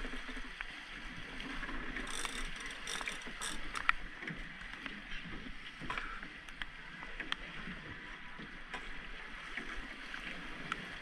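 Sea water splashing and sloshing against the side of a small boat as a hooked striped marlin thrashes at the surface alongside, with scattered knocks and clicks on the hull, the sharpest about four seconds in.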